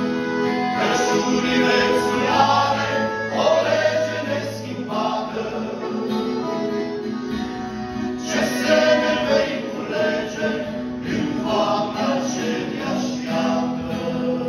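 Male vocal group singing a Romanian Christian song in harmony, accompanied by an acoustic guitar and a piano accordion.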